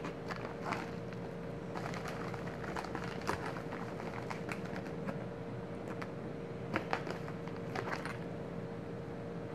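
A plastic bubble-wrap pouch rustling and crinkling as it is handled and set down with other packing items, with scattered sharp clicks over a steady hum.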